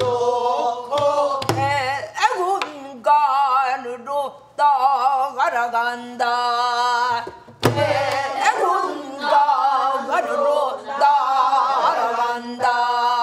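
A woman singing pansori in full voice with a wide, wavering vibrato, accompanying herself on a buk barrel drum. A few deep drum strokes fall near the start and again nearly eight seconds in.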